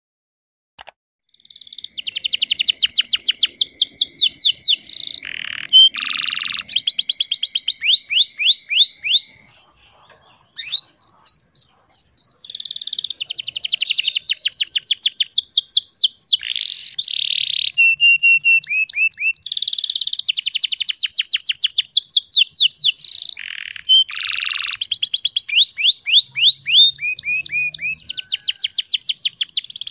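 Domestic canary singing: long, fast trills and rolls of rapidly repeated high notes, phrase after phrase. The song starts after a second or so of silence and pauses briefly about ten seconds in.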